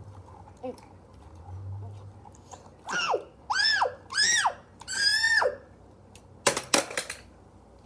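A child's high-pitched squeals: four shrill cries in a row, each rising and then falling in pitch, followed about a second later by a quick cluster of sharp clacks.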